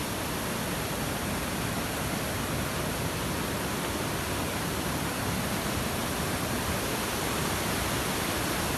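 Steady rushing of fast-flowing river water, an even noise with no separate events that grows slightly louder.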